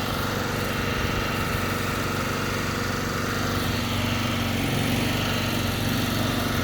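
Small gasoline generator engine running steadily at a constant speed.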